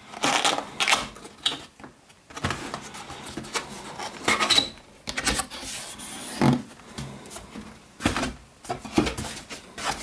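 Cardboard box being opened by hand: the top flaps are pulled up and folded back, with scraping and rustling of card on card and irregular sharp knocks.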